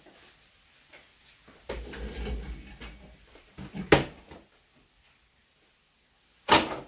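Handling noises from work with plaster molds: a brief scraping rub about two seconds in, then two sharp knocks of hard pieces set down, the second the loudest, near the end.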